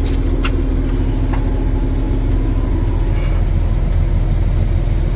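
Heavy diesel engine idling steadily, with a few short sharp clicks in the first second and a half.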